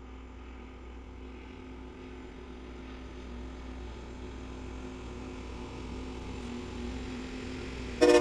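Rail grinding train working past, a steady rumble and hiss from its engines and the grinding stones on the rail, slowly growing louder. Near the end a loud train horn blast starts.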